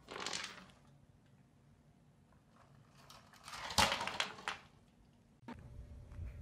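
A cat knocking about a plastic cup on a hard floor: a short scrape at the start, then a longer, louder scraping clatter with one sharp knock about four seconds in. A steady low hum begins near the end.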